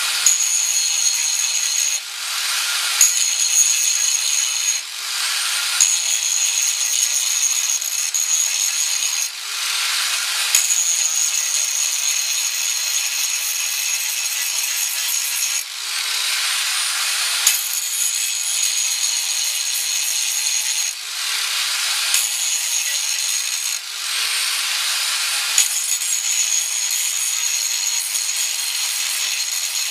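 Electric angle grinder running with a steady high whine, its disc grinding into the metal of a riding mower in about seven passes of a second or two each. Each pass adds a coarse grinding rasp, and the whine dips while the disc is under load.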